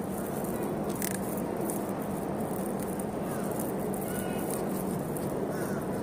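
Steady outdoor background noise in a garden, with a low hum and a few faint bird chirps.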